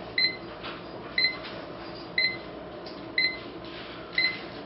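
RHYTHM LED electronic alarm clock's alarm beeping: a short, high single beep about once a second, five times.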